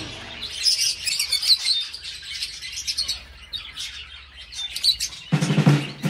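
Small parrots chirping and tweeting, many short overlapping high calls. About five seconds in, music with a drum beat comes in under them.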